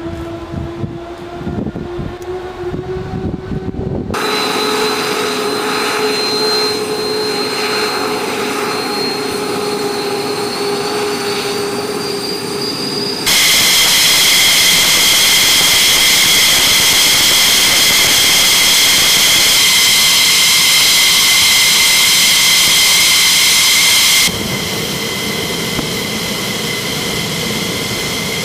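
F-15E Strike Eagle jet engines running on the ground, a steady whine with a pitch that climbs slowly as they spool up. The sound jumps suddenly several times; from about 13 to 24 seconds in it is at its loudest, with a piercing high whine.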